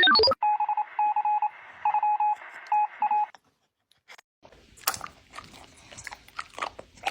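Short, irregular electronic beeps on one steady pitch for about three seconds. After a brief gap comes uneven crunching and chewing, a dog eating something crunchy.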